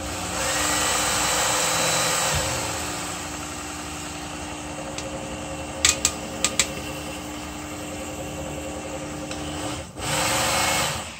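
Work Sharp Ken Onion Edition belt knife sharpener running: a steady motor hum with belt hiss that starts suddenly and cuts off just before the end. A few sharp ticks come about six seconds in.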